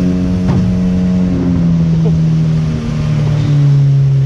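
Motorboat engine running, its pitch falling steadily as the boat slows; brief knocks about half a second and two seconds in.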